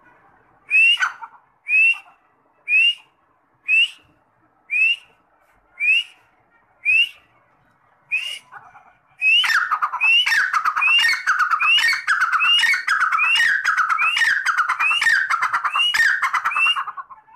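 Grey francolin (teetar) calling: single sharp notes about once a second, then from about halfway a louder, faster run of repeated ringing calls that stops near the end.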